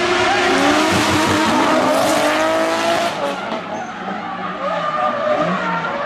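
Rally car engine at high revs with tyres skidding as the car slides through a bend. The engine note falls and the noise fades after about three seconds, and another car's engine comes in near the end.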